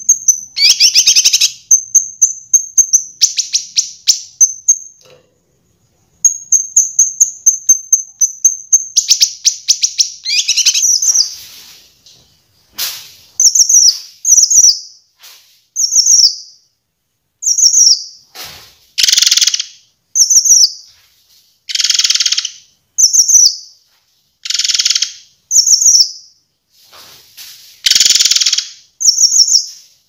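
Recorded kinoi songbird song used as masteran material. It opens with very rapid, high-pitched trills broken by sharp chirps. From about halfway through it changes to separate short chirps about once a second, alternating with harsher, buzzier notes.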